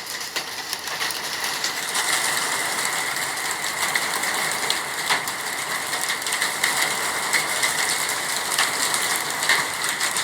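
Hailstones and rain hitting hard surfaces. A steady rushing hiss is thick with many small, irregular ticks and clicks.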